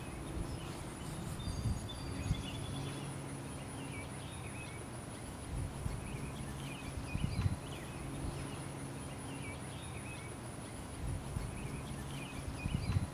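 Rural outdoor ambience: birds chirping on and off over a steady high insect buzz, with a low hum and a few soft low thumps underneath.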